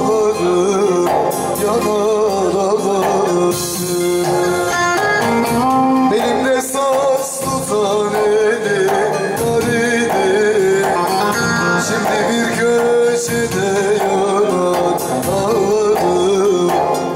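Turkish Teke-region folk song (türkü) played on a Korg Pa800 arranger keyboard with a bağlama, its melody wavering and ornamented.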